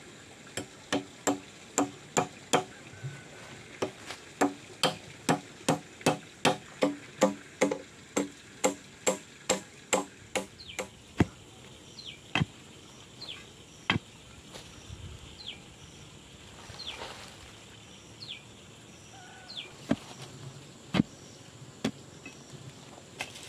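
Claw hammer striking a hollow bamboo pole in a steady run of blows, about two to three a second, each with a short ring; the hammering stops about eleven seconds in. After that, a few scattered thuds of a pole jabbed into stony soil to dig a hole.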